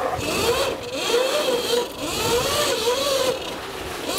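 Cake Kalk INK electric motocross bike's electric motor whining, its pitch rising and falling repeatedly as the throttle is worked. Under it is a steady hiss of the tyres on loose dirt and leaves.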